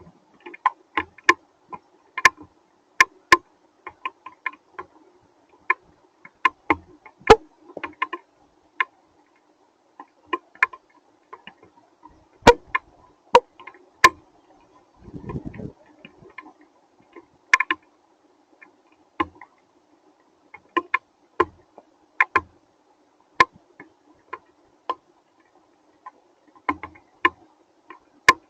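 Hailstones striking a hard surface: irregular sharp ticks, a few a second and uneven in loudness, with a brief low rumble about fifteen seconds in.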